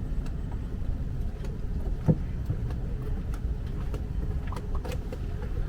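An engine running steadily with a low rumble, with faint scattered clicks and one sharper knock about two seconds in.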